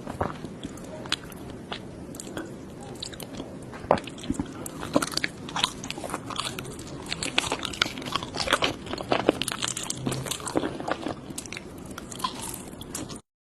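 Close-miked eating: crunchy bites and chewing, a rapid, irregular string of sharp crunches and crackles.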